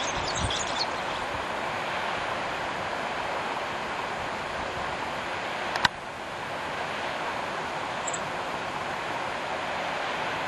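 Steady rushing outdoor noise, with a few short high bird chirps in the first second. A single sharp click comes about halfway through, and one brief high peep follows a couple of seconds later.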